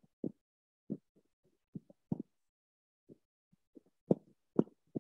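Computer keyboard keys tapped in short, irregular strokes as a word is typed, with two sharper, louder clicks about four seconds in.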